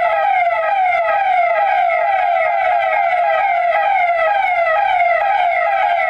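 Electronic siren sounding in quick repeated falling sweeps, about three a second. It is sounded as a public call for people to wear masks against COVID-19.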